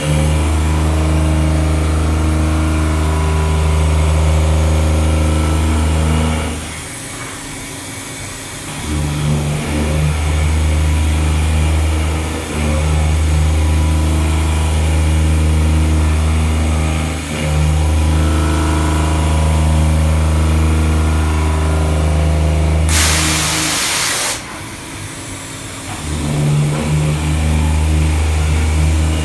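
CNC milling machine running a pocket-milling cycle: a steady low machine hum that eases off twice for a couple of seconds before picking up again. Near the end comes one loud hiss lasting about a second and a half.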